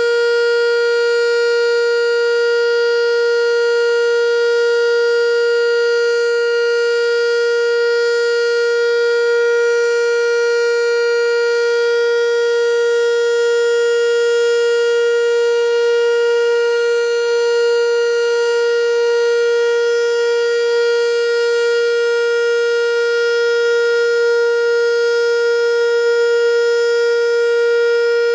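American Signal Corporation T-112 outdoor warning siren sounding the Alert signal: one loud, steady tone held without rising or falling.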